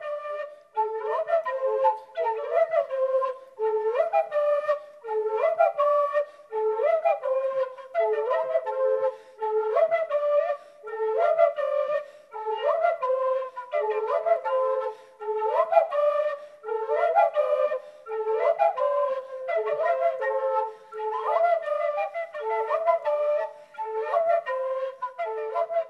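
Instrumental music: a solo melody played in short, repeating phrases.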